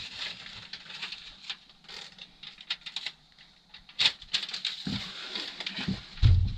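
Foil bubble insulation being handled and pressed into place, crinkling and crackling in irregular small clicks, busier about four seconds in, with a dull bump near the end.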